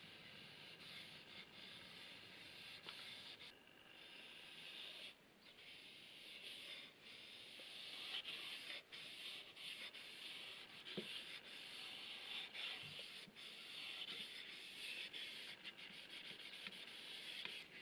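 Faint rubbing of a folded cloth pad along a wooden hammer handle, wiping on a first coat of Tru-Oil gunstock finish. It goes in repeated strokes with short breaks and gets a little louder about halfway through.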